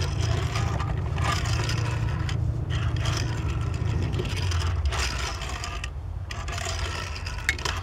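Die-cast metal toy truck rolling and scraping across a wooden tabletop as it is pushed and drifted by hand, in several passes with short gaps, over a steady low hum.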